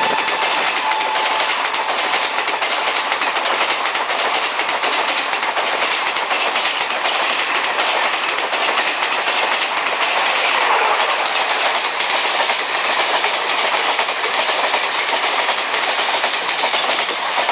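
An express passenger train's coaches rushing past at high speed: a loud, steady rush of wheels on rail with rapid clickety-clack over the rail joints. The tail of the WAP-7 electric locomotive's horn fades out in the first second and a half.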